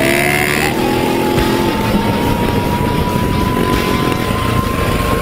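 Dirt bike engine running under way as the rider accelerates: its pitch climbs in the first second, then holds nearly steady, rising only slightly. Wind noise rushes over the on-board microphone.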